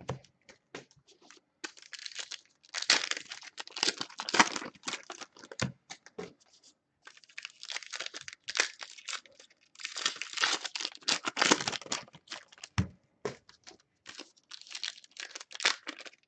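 Foil baseball card pack wrappers being torn open and crinkled in irregular bursts, with a couple of short soft thumps.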